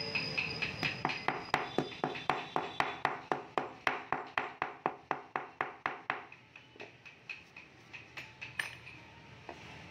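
Small metal-headed hammer tapping white inlay pieces down into their grooves in a wooden panel, at about four to five even taps a second. About six seconds in the taps turn slower and fainter, stopping shortly before the end.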